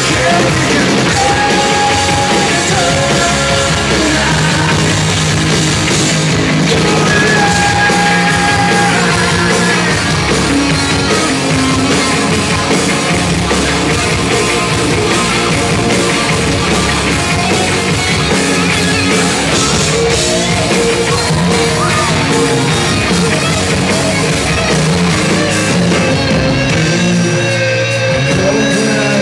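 Live rock band playing a song: electric guitars with a male lead singer.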